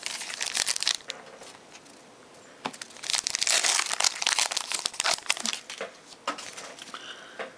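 Foil wrapper of a 2011 Topps Allen & Ginter baseball card pack being torn open and crumpled by hand: a short burst of crinkling, a pause, then a longer stretch of crackling rustle that thins out near the end.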